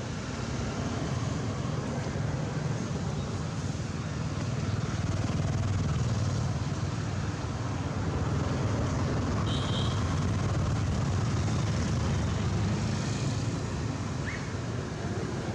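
Steady low rumble of background noise, with two brief faint high squeaks, one about halfway through and one near the end.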